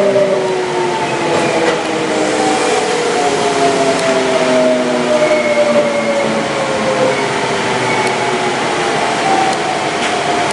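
Hitachi GTO-VVVF inverter and traction motors of a Kintetsu 1259 series train whining as it runs. The several whining tones slide slowly down in pitch as the train slows, typical of electric braking.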